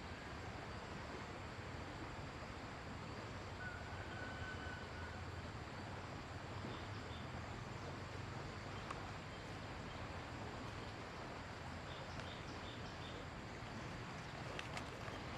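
Steady outdoor background noise with a low hum, and a few short, faint bird-like chirps about twelve seconds in.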